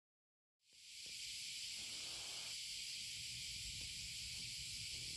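Steady high hiss of room background noise, fading in from silence just under a second in.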